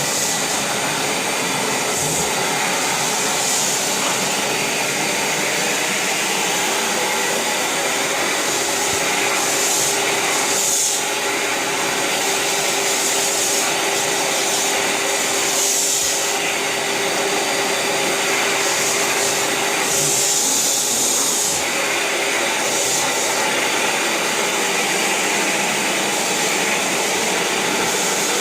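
Vacuum cleaner running steadily, a constant motor hum under a broad hiss, with the hiss changing briefly a few times as the suction shifts.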